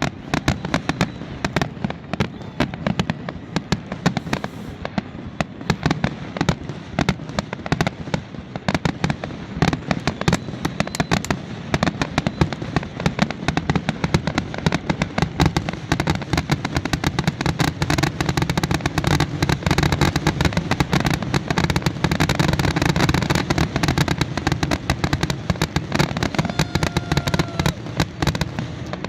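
Fireworks finale: rapid, overlapping shell bursts and crackling reports, thickening into a near-continuous barrage with a deep rumble about two-thirds of the way through.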